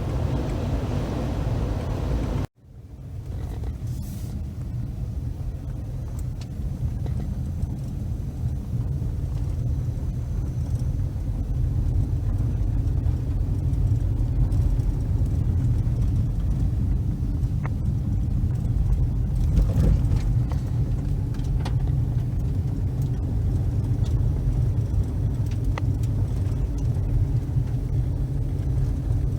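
A Subaru driving along, with steady low road and engine rumble heard from inside the cabin. The sound cuts out briefly about two and a half seconds in.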